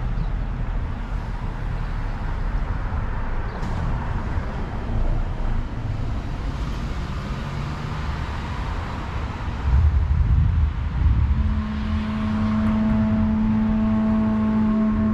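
Street traffic rumbling, swelling as a car passes about ten seconds in. Just after, a long steady held note from a violin comes in and sustains.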